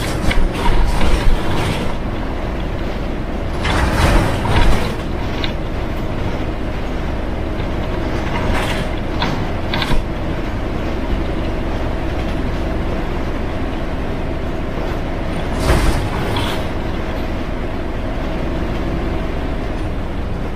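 Front-engine Yangtze River Jingcheng city bus heard from inside, its engine running under a steady drone. Four short bursts of rattling and creaking from the bus body and fittings break through: about a second in, around four seconds, around nine seconds and around sixteen seconds.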